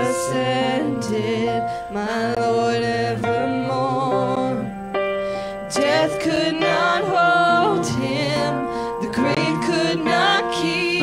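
A small mixed choir of men's and women's voices singing a hymn in harmony, led by a woman singing at an electronic keyboard that plays sustained chords under them.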